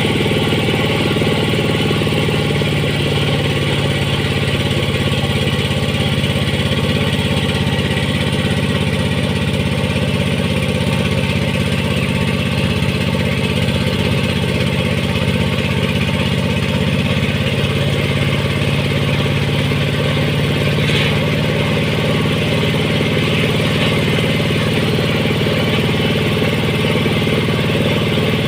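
An engine idling steadily, with a brief click about 21 seconds in.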